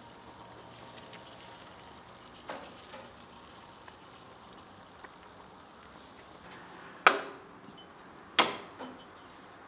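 Two sharp ceramic clinks, about a second and a half apart near the end, as the lid of a glazed clay pot is lifted off and set down, each ringing briefly. A faint steady background sits under them, with one small knock a couple of seconds in.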